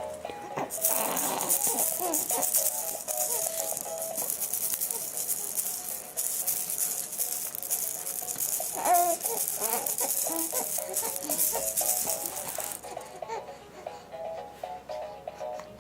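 A rattle shaken continuously over a simple stepping melody, stopping a couple of seconds before the end while the melody carries on. A brief giggle-like voice comes about nine seconds in.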